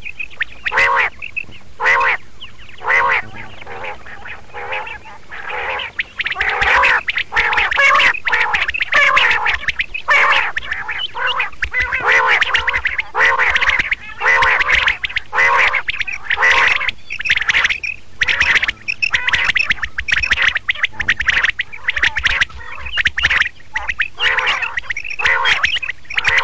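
Quail calling: a run of short, arched, repeated calls, spaced out at first and then crowding into many overlapping calls from about six seconds in.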